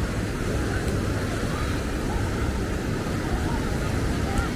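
Steady outdoor ambience of a seaside promenade: a continuous wash of noise with a heavy low rumble, and faint distant voices.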